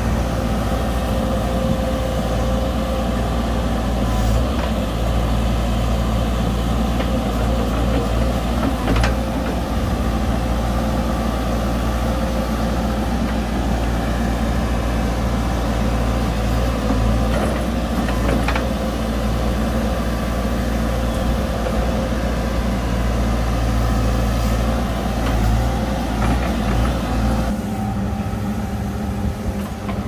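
DISD SD300N wheel loader's diesel engine idling steadily, with a few short sharp clicks; the engine note changes a couple of seconds before the end.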